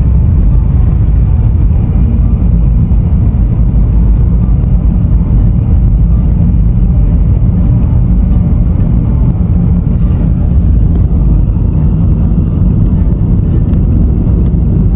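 Steady loud rumble of a car driving, heard from inside the cabin: road and engine noise, heaviest in the low end and unchanging throughout.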